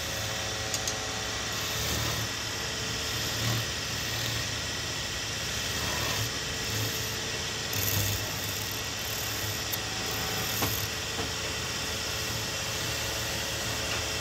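Wood lathe motor running steadily while a hand-held turning chisel cuts a spinning wooden spindle, scraping off shavings, with a few small ticks.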